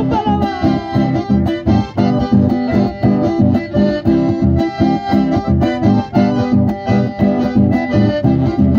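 Instrumental passage played by two button accordions and an acoustic guitar, with held accordion chords over a steady dance beat, amplified through a PA.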